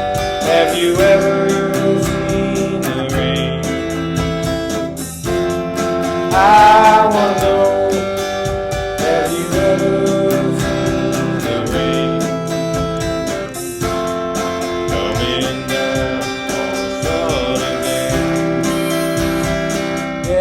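Guitar-led band music with held chords changing every second or two.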